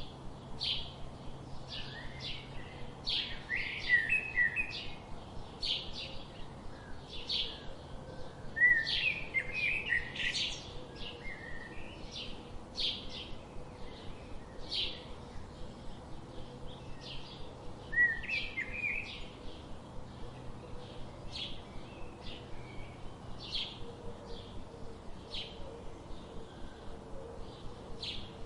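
Small songbirds chirping: short high chirps repeating about twice a second, broken a few times by louder bursts of twittering.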